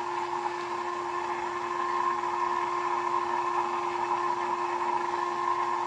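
Submersible sump pump running steadily, a constant hum with a steady tone and a rushing band above it as it pumps seeping basement water out through a hose.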